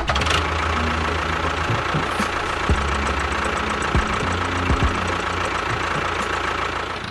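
A motor running steadily with a fast, even rattle and a low hum. It starts abruptly and fades out near the end.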